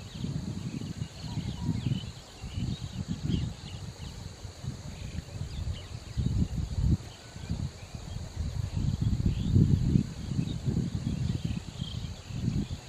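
Outdoor ambience: a steady insect drone with scattered short bird chirps. Over it runs an irregular low rumble that swells and fades throughout and is the loudest thing heard.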